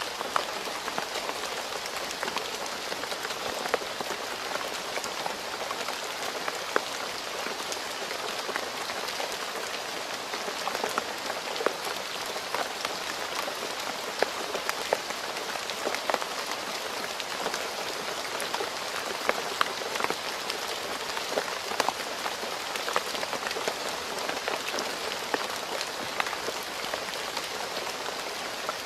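Steady rain falling on a road surface, an even patter with many separate drops ticking sharply throughout.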